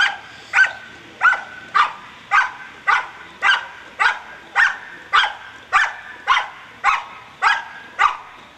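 Belgian Malinois barking at a helper hidden in a blind, in a steady, even rhythm of nearly two barks a second: the hold-and-bark of IPO protection work.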